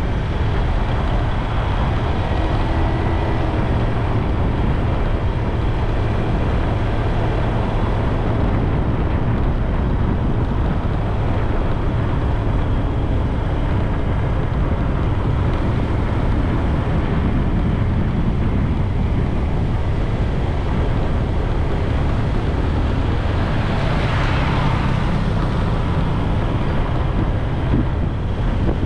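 Steady wind rushing over the microphone of a moving rider, with road noise underneath. A brief louder hiss swells and fades about four-fifths of the way through.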